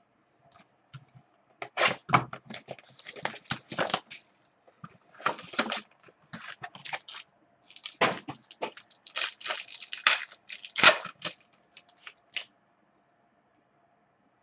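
Plastic wrapper of a baseball card pack being torn open and crinkled by hand: irregular bursts of crackling and tearing, the sharpest about eleven seconds in.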